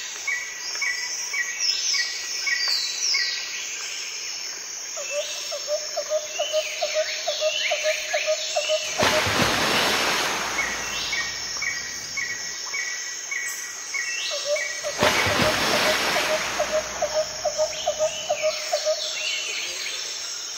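Birdsong ambience: small birds chirping in quick repeated rows with a lower pulsing trill, broken twice by a swell of rushing noise lasting a couple of seconds.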